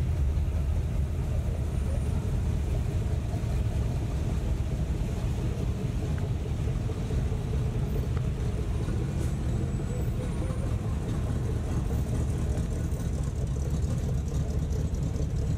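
Engines and exhausts of classic Chevrolet square-body pickups rolling slowly past at low revs, a steady low rumble.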